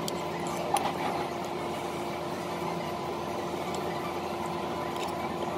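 Steady mechanical room hum in a restaurant, with a few light clicks of a metal fork against a plate, the sharpest about a second in.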